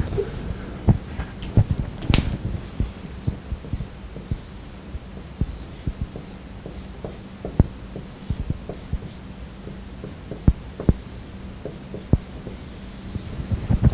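Dry-erase marker writing on a whiteboard: irregular taps of the tip against the board and short high squeaks of the strokes, over a faint steady hum.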